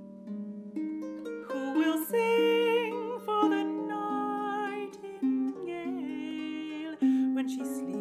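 Lever harp played as a solo interlude: plucked notes and chords ringing over a low bass line. A wordless voice with vibrato sings above the harp at times.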